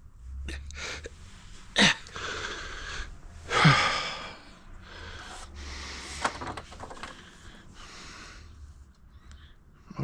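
A man breathing hard with effort, with a loud, strained exhale with a falling voice about four seconds in, and a few sharp clicks of small parts being handled.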